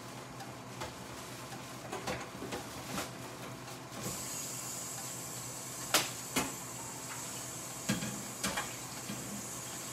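Steam hissing steadily from a covered stainless steel steamer pot on the stove, the hiss setting in about four seconds in, with a few sharp knocks, the loudest about six seconds in.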